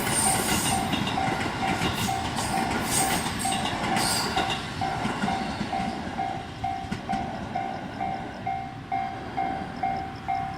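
A Japanese level-crossing warning bell rings steadily at about two strokes a second. An electric train clatters past over the rail joints, and its noise fades out about halfway through while the bell keeps ringing.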